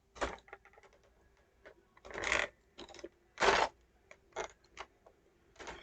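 Plastic model-kit packaging being handled: a scatter of small plastic clicks and several short crinkly rustles, the longest about two seconds in and again about three and a half seconds in.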